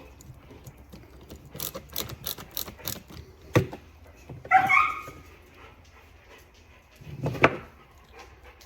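Dogs playing: a run of sharp clicks and knocks, then a short high-pitched whine or yip near the middle, and another thump later on.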